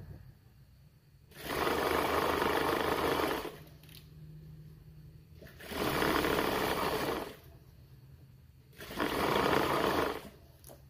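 JUKI sewing machine stitching in three bursts of about one and a half to two seconds each, with a low hum between them, as thin elastic is stretched and sewn along the edge of a fitted crib sheet.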